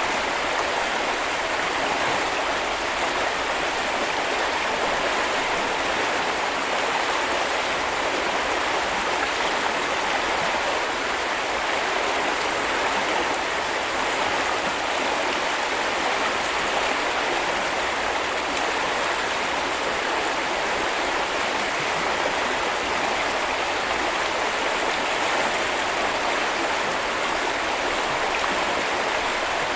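Small river flowing over stones, a steady rushing and babbling of water.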